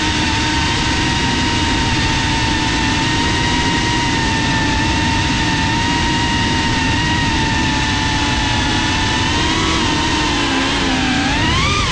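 FPV quadcopter's brushless motors and propellers whining at a steady pitch over a rush of prop noise. Near the end the pitch dips and then climbs quickly as the throttle comes up.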